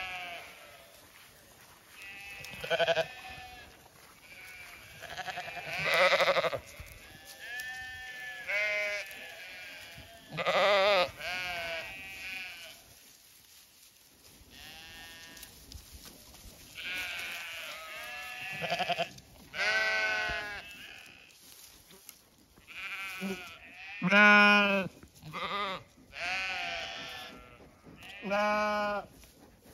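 Zwartbles sheep bleating over and over, a dozen or so separate calls from the flock. The loudest calls come near the end.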